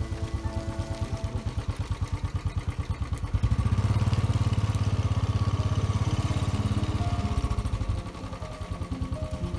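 A vehicle engine running at low speed with a steady, fast beat of firing pulses. It gets louder for about four seconds in the middle, as if given more throttle, then settles back.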